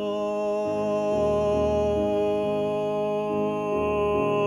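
A man singing an English art song in classical style, holding one long steady note, over accompaniment chords that change about twice a second.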